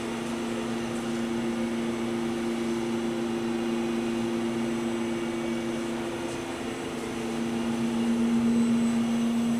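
Steady hum of a powered-up SNK Prodigy GT-27 CNC gang tool lathe standing idle: two steady tones over a faint rushing noise, growing a little louder near the end.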